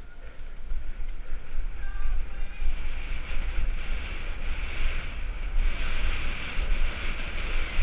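Wind buffeting the microphone of a camera on a mountain bike's handlebars during a fast downhill trail run, with the hiss of tyres rolling over dirt. The hiss gets louder about three seconds in and again near six seconds.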